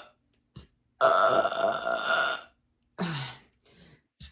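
A woman's long, loud belch about a second in, lasting about a second and a half at a steady pitch, then a shorter sound falling in pitch a moment later. It is gas from a stomach full of carbonated water coming back up.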